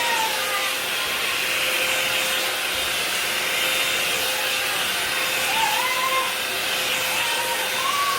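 Revlon One-Step Plus hot-air brush dryer running steadily: a continuous blowing rush of air over a steady motor hum.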